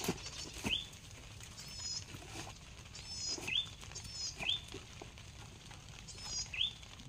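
A bird calling over and over: short rising chirps and higher warbled notes, about four times, with faint rustling and clicks of handling.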